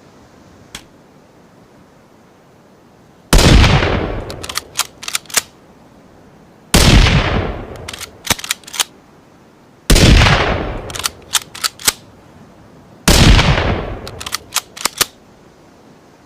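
Four rifle shots from a Ruger American rifle sound effect, about three seconds apart, each with a ringing tail. Each shot is followed by a quick run of sharp metallic clicks, the bolt being worked between shots. There is a faint single click about a second in.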